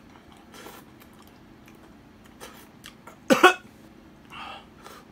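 A man coughs once, short and loud, about three seconds in, while drinking spicy miso ramen broth straight from the bowl; fainter sips come before it and a softer breath follows.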